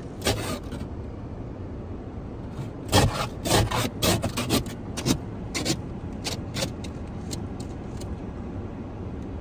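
Ice being scraped off a car windshield in a series of short, rasping strokes: a few at the start, a quick run of hard strokes a few seconds in, then lighter strokes that die out near the end. A steady low rumble continues underneath.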